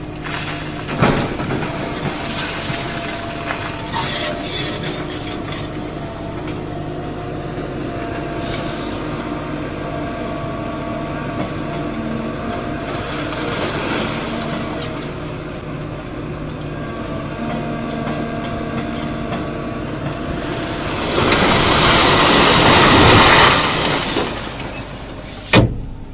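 Heavy diesel machinery running steadily, with a few sharp knocks and a loud hiss lasting about three seconds near the end.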